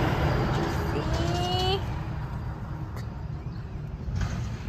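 Low, steady outdoor rumble that eases off, with a short rising pitched call about a second in.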